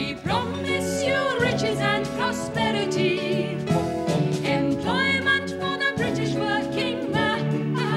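Two women singing a hymn-style song in high voices with vibrato, over held accompaniment chords.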